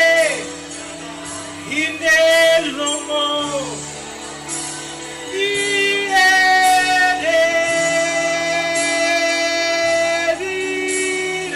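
Worship singing without words: a voice glides and bends between pitches, then holds a long note about halfway through, over a steady held chord underneath.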